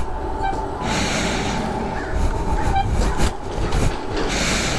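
2012 Zero DS electric motorcycle moving slowly over paving and gravel: a steady low rumble and rattle of tyres and chassis, with no engine note.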